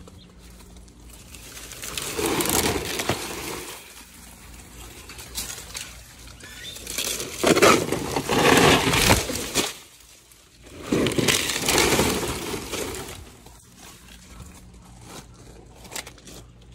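Cordless mini chainsaw cutting through palm fronds: three bursts of cutting noise, the first about two seconds in, then a longer one of about three seconds and a shorter one just after.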